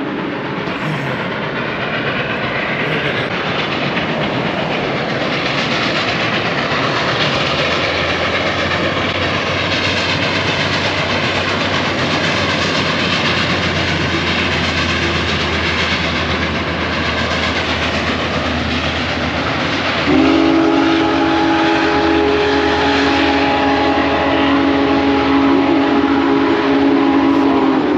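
Union Pacific Big Boy No. 4014 steam locomotive working across a trestle, heard as a steady rumble mixed with highway traffic passing below. About twenty seconds in, its chime whistle sounds one long chord, held for about seven seconds.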